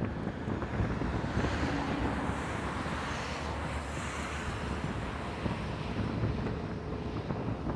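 Wind buffeting the microphone over a steady, distant rumble of airliner jet engines, with a faint hiss swelling in the upper range for a few seconds partway through.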